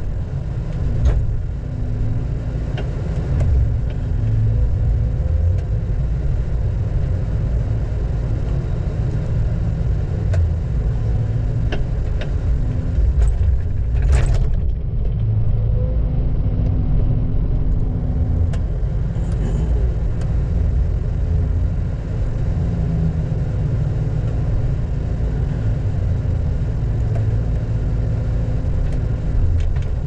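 Heavy logging equipment's engine running steadily and low-pitched, with scattered sharp knocks and clanks, the loudest about halfway through.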